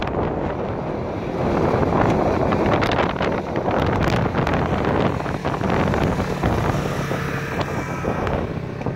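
Side-by-side UTV engine running under load as the machine climbs a steep rock chute and comes up close by, with wind buffeting the microphone.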